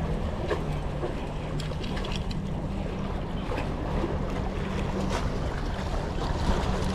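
A steady low motor hum over a continuous wash of wind and water noise, with a few faint scattered clicks.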